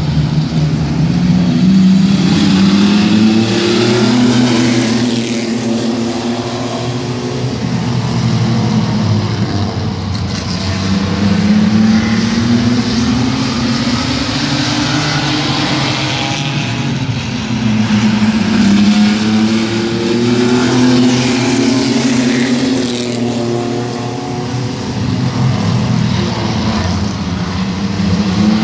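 A field of mini truck race trucks running laps of a short oval. Their engines climb in pitch as they accelerate out of the turns and fall back as they pass, swelling in waves about every eight seconds.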